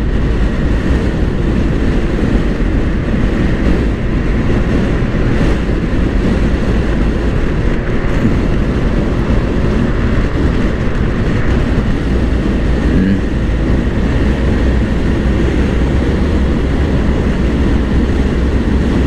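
Honda PCX 160 scooter's single-cylinder engine and belt drive running hard at highway speed, around 100 to 113 km/h, fitted with an aftermarket high-speed pulley set. The steady engine drone is mixed with a heavy, even rush of wind and road noise.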